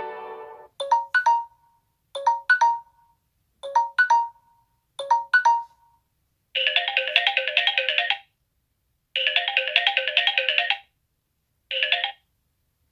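Samsung Galaxy J7 Pro smartphone loudspeaker playing ringtones: four short two-note electronic chirps about a second and a half apart, then a trilling telephone-style ring in two bursts of about a second and a half and a short third burst that cuts off.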